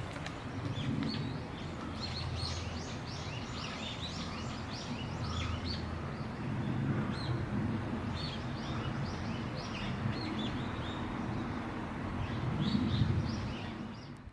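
Small birds chirping in quick runs of short notes over a steady low rumble of outdoor background noise.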